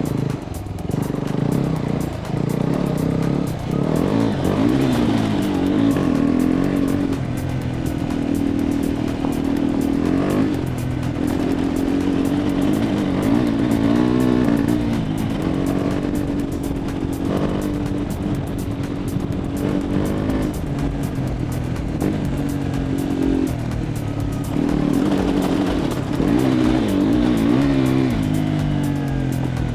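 A KTM motorcycle running under way, mixed with background music that has a steady bass line.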